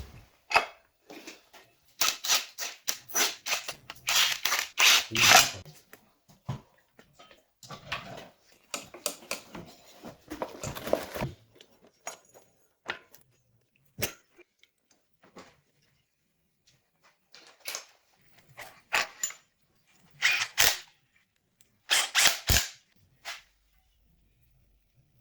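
Hand tools and metal engine parts clicking and knocking in quick clusters during engine assembly, with quiet gaps between.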